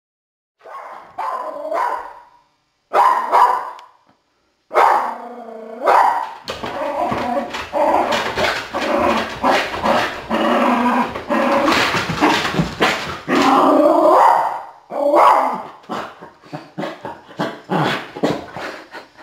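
Small shaggy white dog barking and growling at the front door where mail has come through the slot. After a brief silence come a few drawn-out cries, then a fast, dense run of barks and growls, breaking into shorter single barks near the end.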